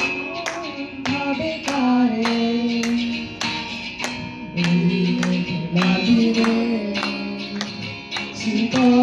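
Live acoustic guitar strumming steadily under women singing a song into microphones, carried through a small loudspeaker.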